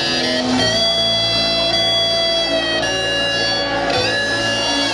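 Live rock band playing amplified music, with long held electric guitar notes that change pitch about once a second over bass and drums.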